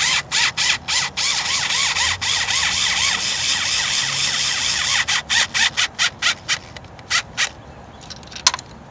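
Tightening a coil pack's hold-down screw with a hand tool, in quick repeated strokes of about four a second. A steadier grinding spell comes in the middle, then more strokes and a single sharp click near the end.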